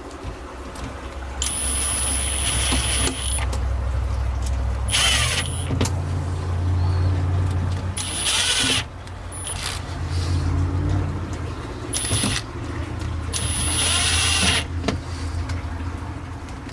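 Milwaukee Fuel cordless impact driver run in about six short, gentle trigger bursts, each a second or two at most with a thin high whine, driving hinge screws back into a cabinet box slowly so they don't strip. A steady low hum runs underneath.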